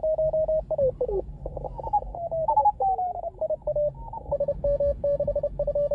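Morse code (CW) signals from an Elecraft K2 transceiver's receiver: a strong station keying at a steady pitch, then the notes slide in pitch as the tuning knob is turned across the 20 m band, and it settles on other stations sending fast Morse.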